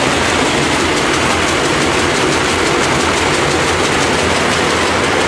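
Peanut processing machinery running steadily, a loud continuous mechanical din with a low hum and a fine, fast rattle.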